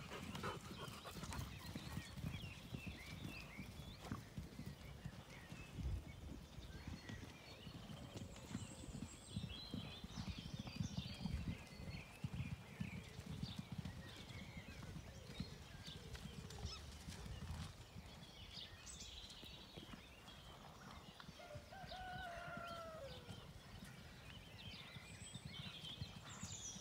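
Hooves of several horses cantering and galloping on soft turf, an irregular dull drumming.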